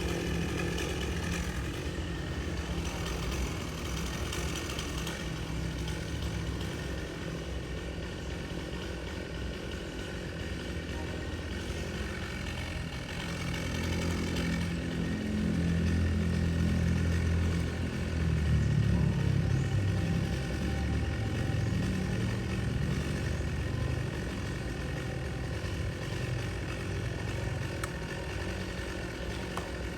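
Small engine running at low speed, getting louder for several seconds around the middle and then settling back.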